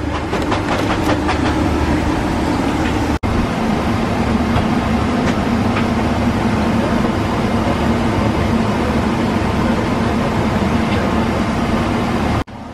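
Steady rumbling hum and rush of an airliner cabin, with a few crackles from a plastic water bottle being handled in the first second or so. The sound breaks off for an instant about three seconds in and again near the end.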